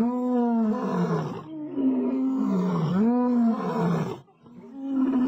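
Male African lions roaring, a string of long drawn-out roars that rise and fall in pitch and overlap one another, with a short break about four seconds in before they start again.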